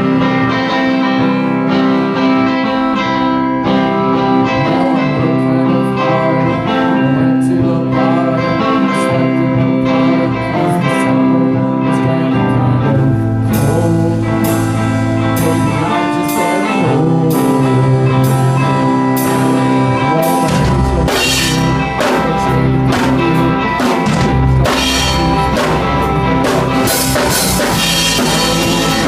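A small rock band playing live: amplified electric guitar over a drum kit. The drum hits grow stronger partway through, and a deep low end joins about two-thirds of the way in.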